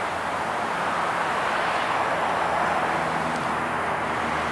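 Road traffic noise of a vehicle going by: its tyre and engine noise swells a little towards the middle, then eases off.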